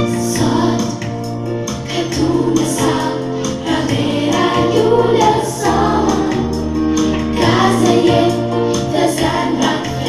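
A song with several voices singing over a keyboard accompaniment and a steady beat, played for the girls' dance.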